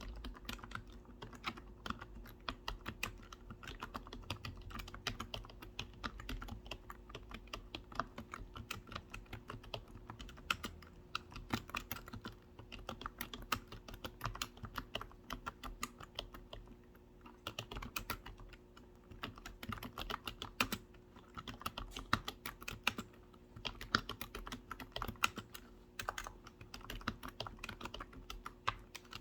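Computer keyboard typing: continuous quick runs of key clicks with a few short pauses.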